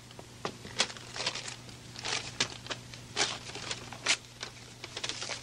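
A paper letter being handled: paper rustling and crinkling in short, irregular strokes, over a steady low hum.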